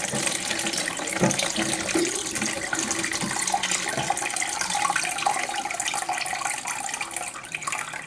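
Leftover water from a toilet tank pouring out through the loosened fill-valve connection into a catch bucket, running steadily and easing off slightly near the end.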